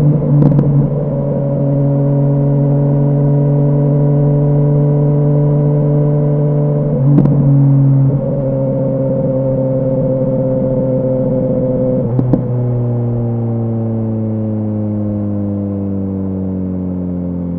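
BMW S1000R inline-four engine running under way through an Arrow aftermarket exhaust, its note steady. The note changes abruptly with a short click about 7 and 12 seconds in, as gears change. After the second change the engine note slowly falls as the bike slows.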